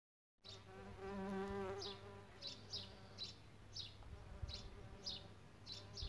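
A flying insect buzzing, loudest in the first couple of seconds, with a bird repeating a short, high, falling chirp every half second or so.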